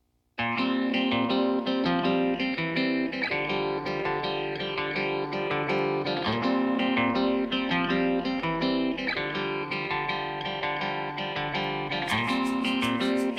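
Background music led by plucked guitar, starting just after a brief silence and turning brighter and busier near the end.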